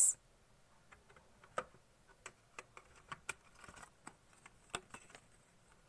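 Light, irregular clicks and taps of a metal geometry box and the instruments in its tray being handled, about a dozen in all, with louder ones about a second and a half in and near the end.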